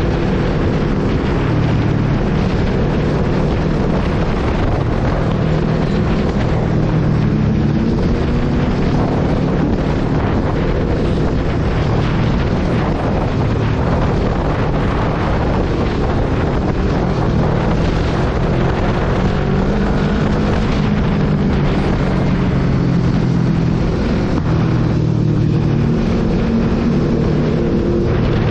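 Sport motorcycle engine running under way, its pitch rising and falling as the throttle and gears change, with steady wind noise buffeting the microphone.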